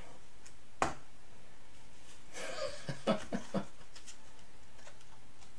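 Hands handling trading cards in plastic holders: one sharp click about a second in, then faint handling over quiet room tone, with a soft low chuckle near the middle.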